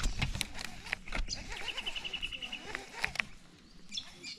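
Baitcasting rod and reel being handled and wound, giving a string of clicks and knocks, with a quick run of about ten high ticks a second near the middle. Birds chirp in the background near the end.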